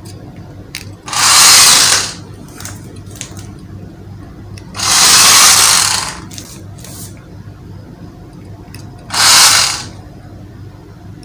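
Battery-powered toy RC car's small electric motor and plastic gearbox whirring in three bursts of about a second each as the single-button remote is pressed, the car running on a tiled floor.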